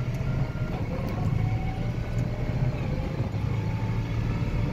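Farm tractor engine running steadily under way, a constant low drone as it drives over rough ground.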